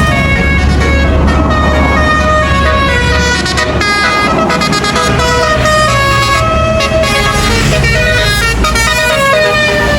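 Tour bus basuri telolet horn playing a melody of short held notes that step up and down in pitch, over the low rumble of the bus engine.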